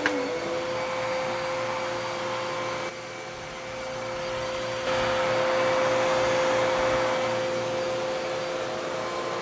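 Dirt Devil Power Max Pet UD70167 upright vacuum cleaner running on carpet, a steady motor whine under the rush of air. It dips quieter about three seconds in and comes back louder about five seconds in.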